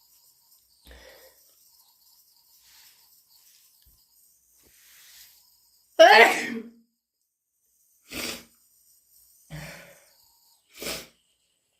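A person's loud allergy sneeze about halfway through, after a slowly building breathy inhale. Three shorter, sharp breathy bursts follow at intervals of just over a second.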